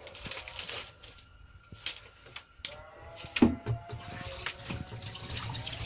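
Kitchen handling sounds: water running with scattered knocks and clatter, one louder knock about three and a half seconds in.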